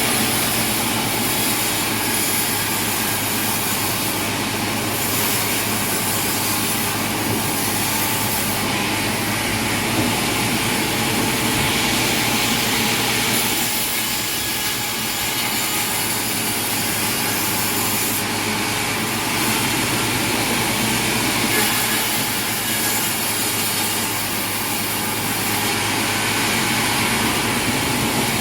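Sawmill machinery running steadily: engine-driven equipment with saw noise.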